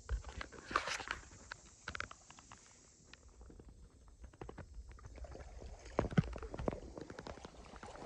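Kayak paddling: irregular water splashes and drips from the paddle with scattered light knocks and clicks, loudest about a second in and again around six seconds.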